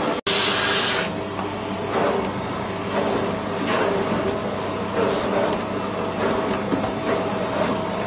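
Arnica bagless vacuum cleaner running, a steady hum under a rush of air that swells and eases about once a second as its floor brush is pushed back and forth over a rug.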